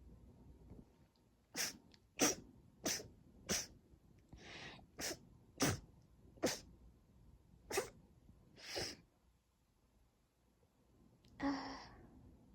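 A woman sneezing over and over in a rapid fit, with short, sharp sneezes coming about every half second to second and a few longer ones among them. After a short pause, one more sneeze comes near the end. This is an allergic sneezing fit.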